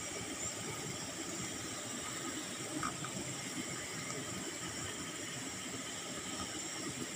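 Steady outdoor background noise at night: a low, uneven rumble under a constant hiss with a faint, steady high-pitched ringing.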